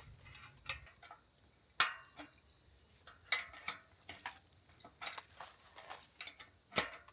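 Steady high insect trill in the background, with scattered sharp clicks and knocks from handling the parts of an all-metal deer feeder; the loudest knock comes a little under two seconds in, others about halfway and near the end.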